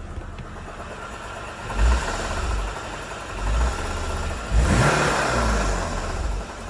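BMW E60's engine idling and revved three times, with the revs rising and falling about 2 s in, 3.5 s in, and longest from about 4.5 to 6 s in.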